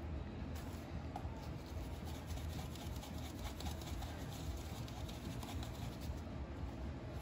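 Faint gritty rustling and light ticks of cookie-dough balls being swirled in a small plastic cup of granulated sugar and set down on a baking sheet, over a low steady hum.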